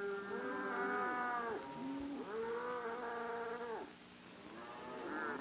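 Several steers bellowing: long, drawn-out moos that overlap, each lasting a second or two and falling in pitch at the end, with a fainter call near the end.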